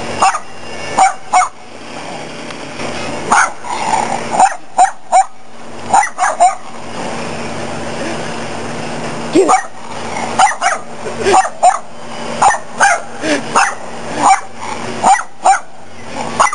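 Small puppy barking in quick runs of sharp barks, with a pause of a couple of seconds about halfway through.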